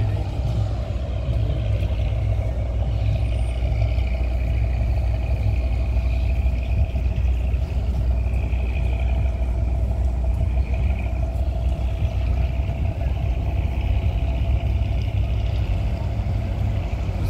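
Diesel engine of a large river cargo vessel running as it moves past: a steady low drone with a constant humming tone above it.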